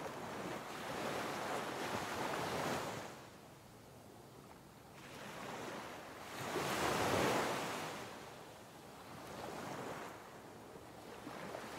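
Ocean surf on a beach: waves breaking and washing in slow swells, the loudest surge about halfway through, with smaller ones near the start and end.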